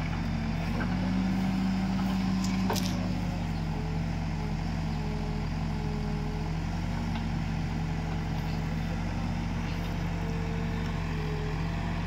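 Diesel engines of an Escorts Digmax backhoe loader and a Swaraj tractor running steadily while the backhoe works. The note rises and grows louder about a second in under hydraulic load as the boom moves, and settles back after a few seconds. There is a single sharp knock near three seconds.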